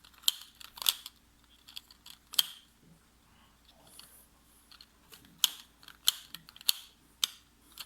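Plastic balls clicking as they are pushed through a ball-sliding puzzle fidget toy: sharp, irregular clicks, some close together and others a second or more apart.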